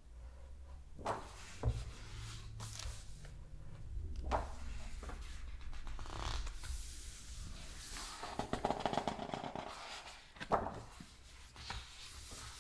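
Pages of a large hardcover Louis Vuitton book being turned and pressed flat by hand: several paper swishes with soft low bumps of the book on the table, then a denser crinkling rustle of the pages about eight seconds in.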